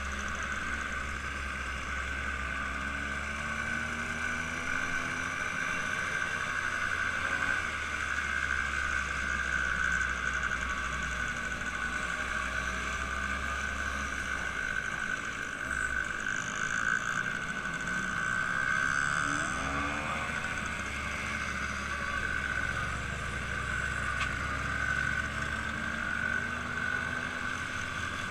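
An engine running steadily, with a constant high hum over a low rumble.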